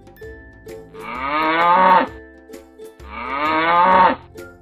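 A buffalo mooing twice, the same call repeated. Each call lasts about a second and grows louder toward its end, over faint background music.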